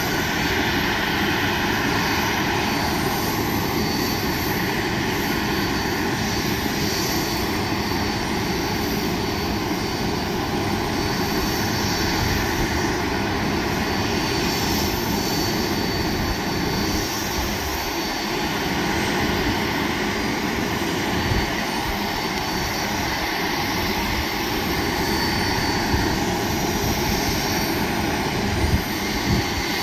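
Steady jet aircraft noise across an airport apron, a continuous rush with a faint high whine over an uneven low rumble. A couple of small knocks come near the end.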